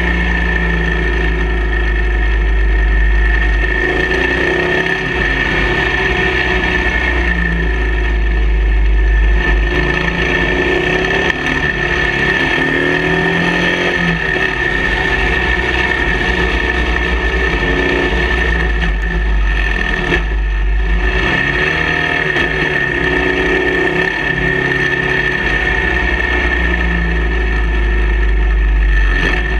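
Motorcycle engine running on the move, its revs rising and falling again and again with throttle and gear changes through the bends, over heavy wind rush on the microphone and a steady high-pitched whine.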